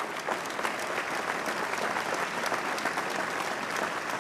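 A large seated audience applauding, many hands clapping at once in a dense, steady wash.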